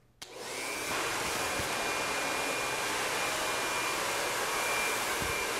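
Handheld hair dryer switched on about a quarter second in, coming up to speed within about a second and then blowing steadily, with a thin high whine over the rush of air.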